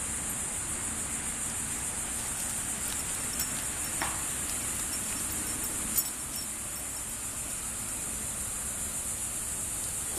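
Steady, unbroken high-pitched chorus of insects such as crickets, with a couple of faint clicks about four and six seconds in.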